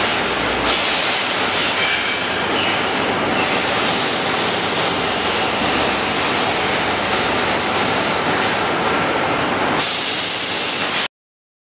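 Steady, loud hissing of a water spray and steam quenching hot steel sucker rods on the production line, mixed with factory machinery noise. It cuts off abruptly near the end.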